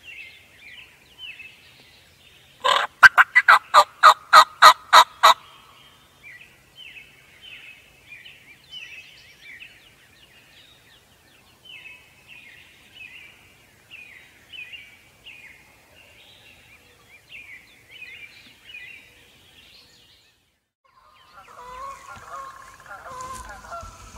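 Wild turkey gobbling loudly, a run of about ten quick pulses lasting a couple of seconds, over a songbird's short chirps repeating steadily at dawn. Near the end a flock of geese starts honking.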